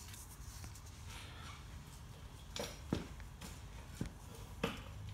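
A few light, irregular knocks and clicks in the second half, over a faint low steady hum.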